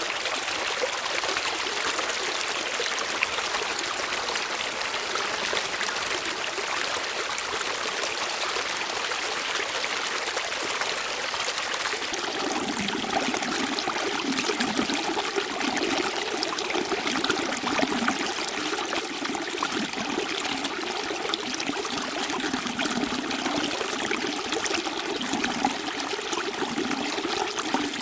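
Running water, a stream flowing steadily with a continuous rushing trickle. About halfway through, a deeper, rippling water sound joins it.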